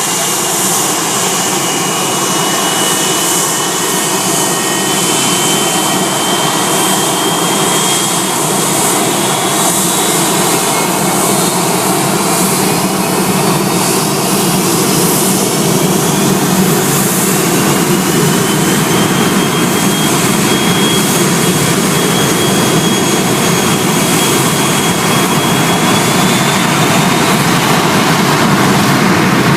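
Airliner's jet engines at takeoff thrust: a loud, steady roar with a whining tone that slowly rises in pitch.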